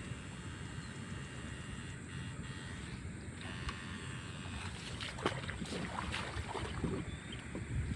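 Water sloshing and splashing over a steady low rumble, with several short splashes in the second half.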